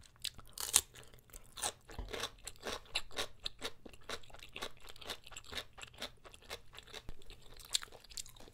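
Close-miked chewing of a mouthful of jjapaguri (black bean instant noodles): an irregular run of wet clicks and smacks, several each second.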